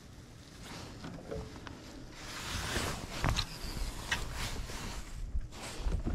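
Wind rumbling on the microphone over a steady hiss of wind and water, with a few light clicks from the spinning rod and reel being handled.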